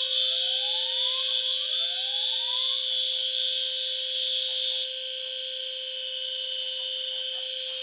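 Several fire alarm notification appliances sounding together as one steady high-pitched tone over a lower steady tone, with two rising sweeps in the first few seconds. Part of the high sound cuts out about five seconds in.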